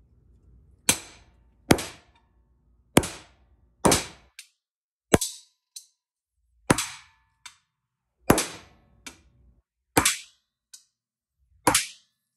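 Hammer blows on a steel punch, driving plugs into the ports of an aluminium transmission overdrive piston housing: about ten sharp metallic strikes at an uneven pace of roughly one a second, several followed by a lighter tap. The plugs are being seated until they sit flush or below.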